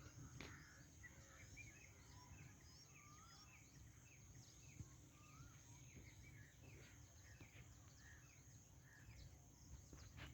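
Faint chirping of small birds, many short quick calls throughout, over a steady high-pitched insect drone and a low rumble.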